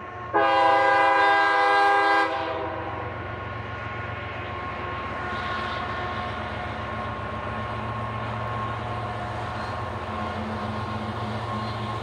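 A CSX freight train's diesel locomotive sounds its horn, a loud chord lasting about two seconds, then keeps up a steady low engine rumble as the train approaches.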